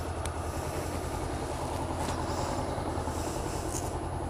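Motorcycle engine running steadily at idle, a low, even rumble.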